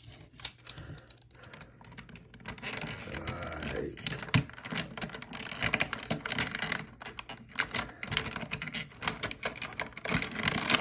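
Hard plastic clicking and tapping as the Transformers Prime Ultra Magnus toy's large gun is handled and its pegs are pushed into the ports on top of the toy truck, in many irregular clicks.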